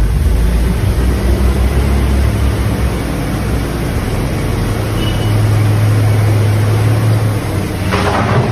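Heavy diesel vehicle engine running with a steady low rumble, with a brief burst of noise near the end.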